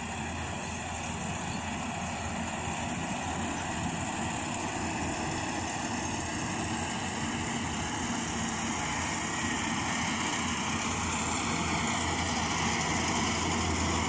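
Yanmar rice combine harvester running steadily at working speed, a constant engine hum with a mechanical hiss over it, growing slowly louder as the machine comes closer.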